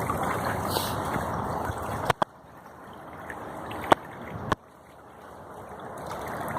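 Water gushing and rushing out of a leaking water main, a steady noisy rush broken by a few sharp clicks. It drops abruptly about two seconds in, then slowly builds back up.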